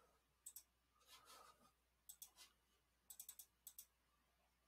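Faint computer mouse clicks, coming mostly in quick pairs with a short run of several near the end, as the mouse is double-clicked repeatedly to grab an object on screen.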